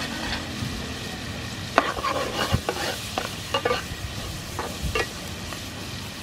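Clam meat sizzling in a frying pan while a metal spoon stirs it, with a run of sharp scrapes and clinks of the spoon against the pan from about two to five seconds in.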